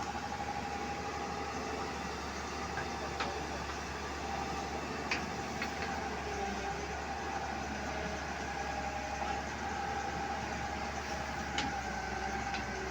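Heavy engine running steadily with a constant hum, broken by a few sharp metallic knocks.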